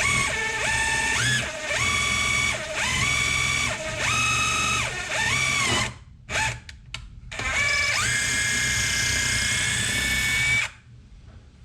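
Electric drill run in a string of short bursts of about a second, the motor whine rising and falling with each pull of the trigger, then one longer run of about three seconds that stops sharply near the end. It is drilling a pilot hole into a stripped carburetor screw for a screw extractor.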